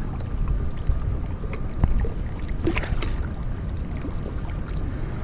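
Wind rumbling on the microphone at the water's edge, with a short splash about halfway through as a largemouth bass is released back into the reservoir.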